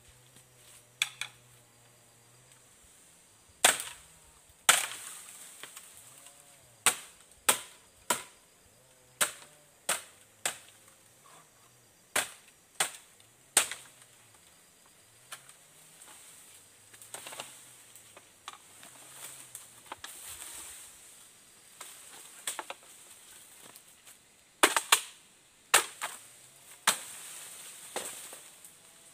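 Repeated sharp strikes of a tool on wood, spaced irregularly about a second apart, in two bursts with a quieter stretch in the middle.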